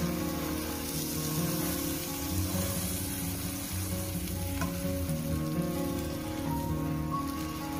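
Butter sizzling steadily in a nonstick frying pan under a slice of wheat bread as it toasts.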